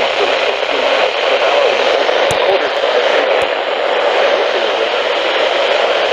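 Weather radio receiver giving a steady, loud static hiss, with two short clicks about two and three and a half seconds in.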